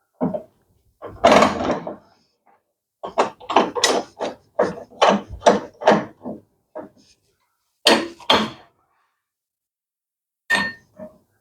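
Metal and wood clunks and knocks from a Shopsmith lathe tool rest being fitted into its holder and set in place. There is a short clatter, then a run of quick taps about three a second, then a few single clunks.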